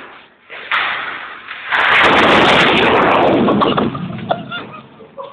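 A homemade cola-bottle firecracker going off: a loud burst about a second and a half in, carrying on as a rushing noise for about two seconds before dying away.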